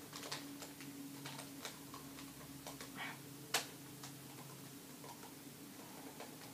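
Plastic QJ 3x3 puzzle cube clicking irregularly as its layers are turned with the teeth, with one sharper click about three and a half seconds in. A low steady hum runs underneath.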